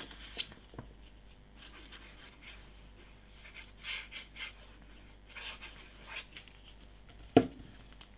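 Liquid glue squeezed from a plastic bottle onto card stock: a few short, soft hisses amid quiet paper handling. One sharp tap near the end as the bottle is set down on the table.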